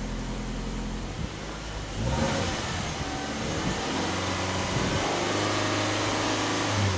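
Exhaust of a Subaru Impreza Sport 2.0i's flat-four boxer engine. It idles, then about two seconds in it is revved up with no load and held at raised revs, which climb gradually before falling back near the end.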